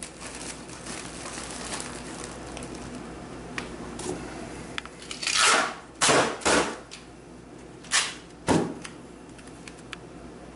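UL181A-rated duct tape being pulled off its roll in about five short, loud rips, starting about five seconds in, for wrapping around a ceiling supply outlet.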